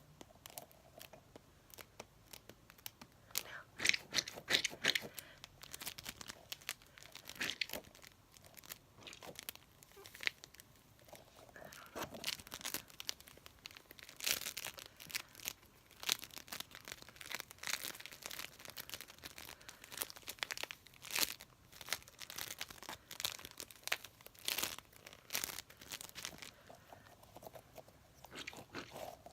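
Sticky squishy toys handled close to the microphone, pressed together and peeled apart: a long run of irregular crackles and peeling sounds.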